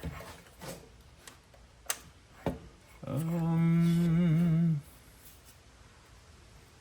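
A man hums one steady low note for nearly two seconds, wavering slightly at the end. It is preceded by a few small sharp clicks.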